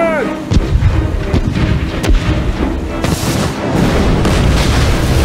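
Cartoon sound effects: a short vocal cry at the very start, then a deep, loud rumbling with repeated thuds and booms. A rushing noise joins about three seconds in, over background music.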